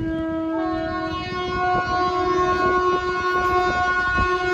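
Train horn held in one long, steady blast, its pitch stepping up slightly about half a second in, over the rumble and knocking of a passing train.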